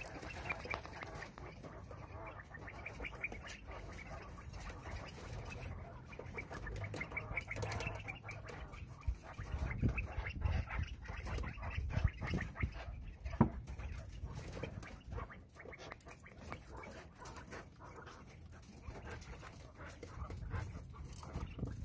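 A flock of Coturnix quail in a cage chattering with runs of quick, repeated chirps, among scattered clicks and knocks, with one sharp knock about 13 seconds in.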